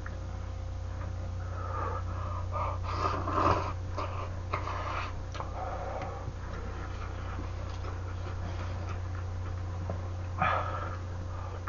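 A person eating hot, spicy rice cakes and noodles, with open-mouthed huffing breaths and chewing noises, several between about one and five seconds in and one more near the end. A steady low hum runs underneath.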